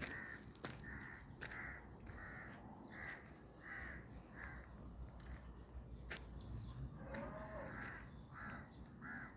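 Crows cawing in runs of short, harsh calls about two a second, with a few sharp knocks in between.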